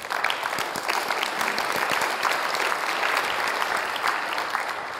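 Audience clapping, full and steady, then starting to die away near the end.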